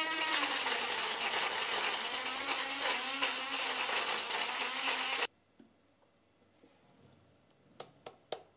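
Electric blender (mixer grinder) running with its lid held down, grinding chunks into a coarse crumb: a motor whine over a rattling churn, cutting off abruptly about five seconds in. Near the end come a few sharp taps as the ground mix is knocked out of the jar.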